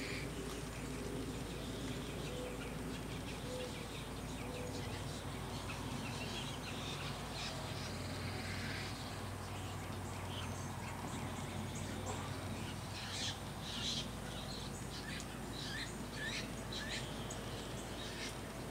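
Birds giving short, high chirps and calls, many in quick succession in the second half, over a steady low rumble.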